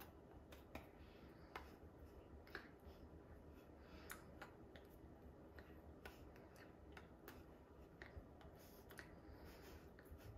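Near silence: quiet room tone with a low hum and faint, irregular clicks and taps, about a dozen, from hands meeting and brushing during sign language.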